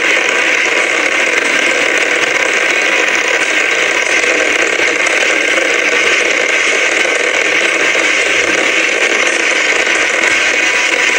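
Fireworks giving a steady, loud, rushing crackle with no separate bangs, like a fountain firework spraying sparks.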